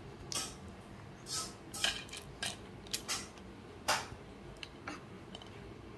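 Plastic toys hanging from a baby bouncer's toy bar clicking and clattering as a baby grabs and shakes them: irregular sharp clacks, about ten of them.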